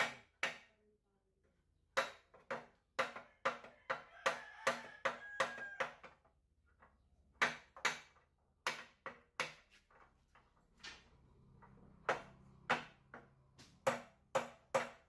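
Hammer blows on metal during deep-well pump installation work: sharp strikes, each with a brief metallic ring, coming in quick runs of several at about two or three a second with short pauses between the runs.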